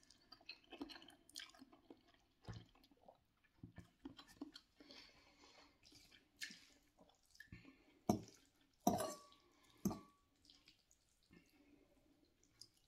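Quiet slurping and chewing of long instant noodles eaten off a fork, with scattered clicks of the metal fork against the glass bowl, a few sharper ones about two-thirds of the way through.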